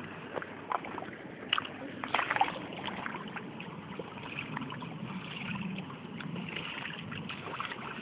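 Horse splashing and sloshing shallow water with its muzzle: a few sharp, irregular splashes in the first couple of seconds, then a steadier run of sloshing.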